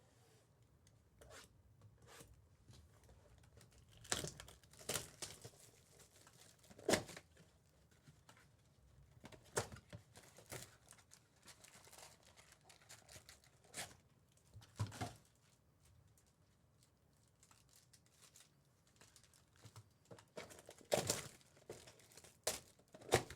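Trading-card pack wrappers being torn open and crinkled in faint, short, irregular bursts.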